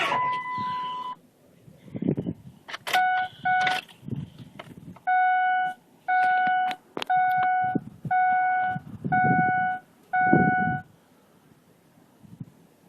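A truck's dashboard warning chime beeping: two short beeps, then six longer ones about once a second, stopping near the end. Soft low thumps fall in between.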